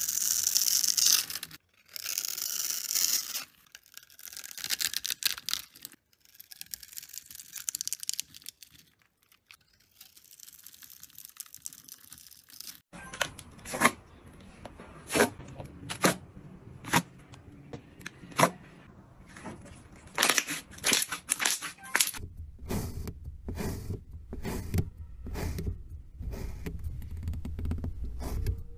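A blade shaving and cutting into dry pink soap, making crisp crunching and crumbling in bursts over the first several seconds. After that comes a string of sharp taps and clicks. Near the end, red kinetic sand is sliced, with clicks over a low rumble.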